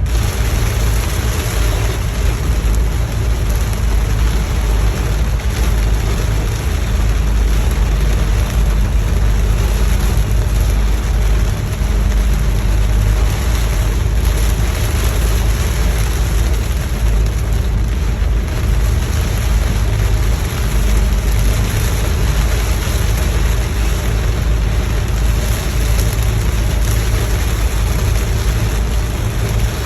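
Heavy rain beating on a moving car, over a steady low rumble of the car and its tyres on the wet road.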